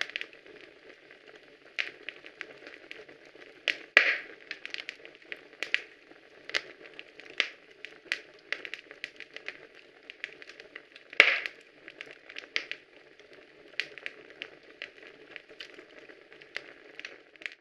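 Crackling: irregular sharp clicks and pops over a steady hiss, with two louder pops, one about four seconds in and one near eleven seconds.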